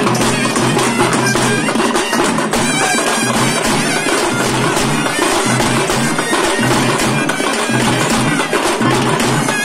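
Festival drum band: round hand-held drums beating a fast, continuous rhythm, with a loud reedy wind instrument playing over a steady drone.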